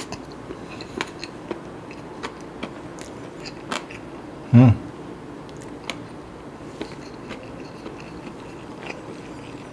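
Close-up mouth sounds of a person chewing a mouthful of curried rice: soft wet clicks and smacks scattered throughout, with one short hummed "mm" about halfway through.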